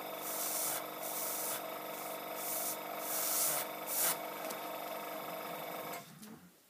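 Airbrush letting out several short bursts of hissing air over the steady hum of its air compressor; both stop about six seconds in.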